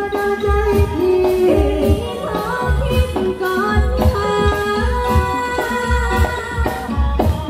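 A woman singing a Thai song into a microphone, her melody bending and gliding over amplified band music with a steady drum beat.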